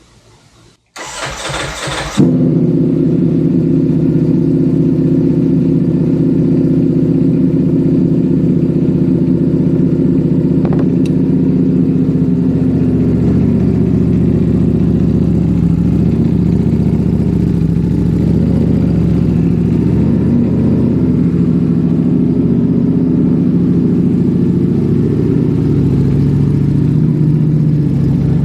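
Ducati Panigale V4S's 1103 cc V4 engine cranked on the starter and catching about two seconds in, then idling steadily, its idle settling slightly lower about halfway through.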